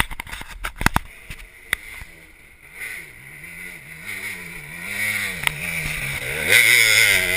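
Dirt bike engine revving up and down as the bike climbs a steep dirt hill, growing louder as it comes closer and loudest near the end. A few sharp knocks in the first second.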